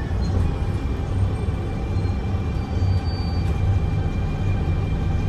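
Mercedes-Benz O405NH bus running with its Voith automatic transmission whining at a steady pitch over a heavy low engine rumble.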